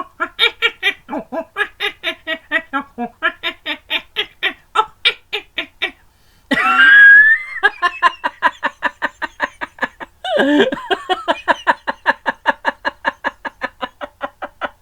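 A man's voice imitating a monkey: rapid 'ooh-ooh' hoots at several a second, broken twice by a loud rising screech, the first about six and a half seconds in and the second about ten seconds in.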